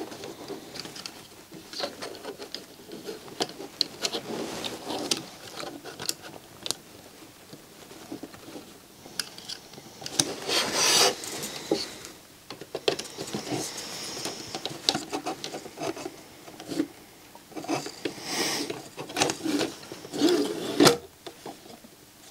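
Hands working the plastic parts of a DVD player's disc tray and belt mechanism: irregular small clicks, taps and rubbing, with louder scrapes around the middle and again near the end.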